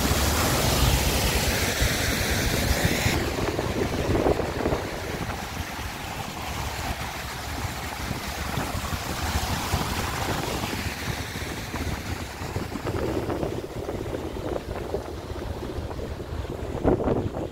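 Mountain waterfall rushing over rocks. About three seconds in it cuts suddenly to a duller, quieter rush of a stream with wind on the microphone.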